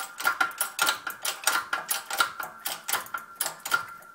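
Harbor Freight 12-ton hydraulic shop press being worked, a fast run of sharp metallic clicks several times a second as a bearing is pressed onto a Gravely Model L axle. The clicking stops near the end, once the bearing is seated.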